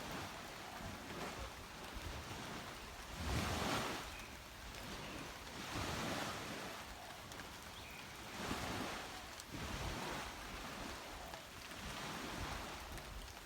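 Small sea waves breaking and washing onto a beach. The surf swells in a rush every two to three seconds, loudest about three and a half seconds in.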